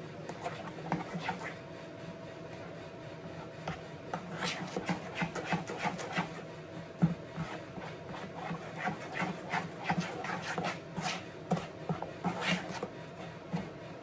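Spoon stirring thick cornbread batter in a mixing bowl, scraping and tapping against the bowl in quick, irregular strokes, with stiff, not-quite-soft butter being worked in.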